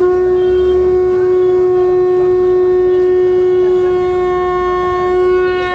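A conch shell (shankha) blown in one long, steady note that starts suddenly, holds its pitch and swells slightly just before it stops.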